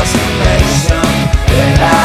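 Rock band playing an instrumental stretch of a song, with a steady drum beat under pitched instruments.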